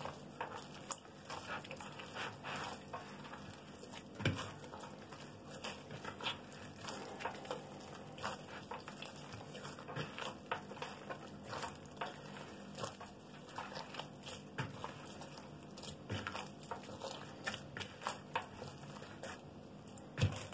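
Hand kneading soft, oiled yeast dough in a plastic bowl: an irregular run of wet squishes and slaps, with one firmer hit about four seconds in.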